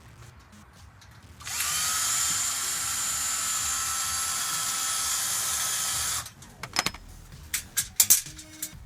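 Cordless drill with a Phillips bit spinning up and running steadily for about five seconds, backing a screw out of the pit bike's steel shipping cage. It is followed by several sharp clicks and knocks.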